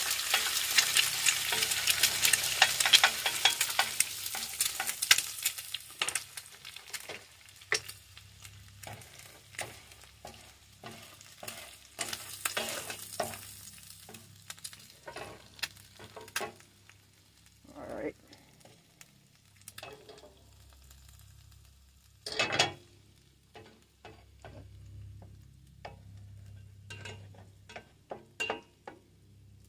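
Two eggs frying in olive oil in a stainless steel frying pan. The sizzle is loudest for the first few seconds and then dies down, while a spoon and a spatula scrape and tap against the pan, breaking the eggs up.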